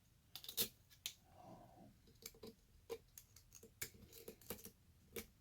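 Faint, irregular metallic clicks and scrapes of a lock pick working the pins of a pin-tumbler challenge lock held under tension, searching for a stubborn binding pin.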